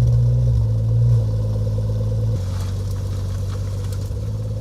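Jaguar XJS 5.3-litre HE V12 engine idling just after starting. Its revs drop a step about two seconds in as it settles into a steady idle.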